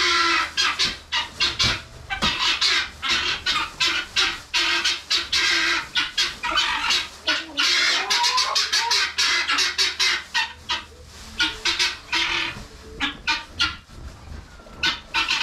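Guinea fowl calling: harsh, noisy squawks repeated rapidly, several a second, with only brief breaks.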